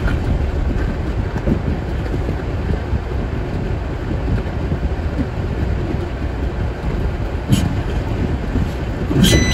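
Inside a truck cab: the engine running with a steady low rumble as the truck rolls slowly through a parking lot. A single click comes about seven and a half seconds in, and a reversing beeper starts right at the end.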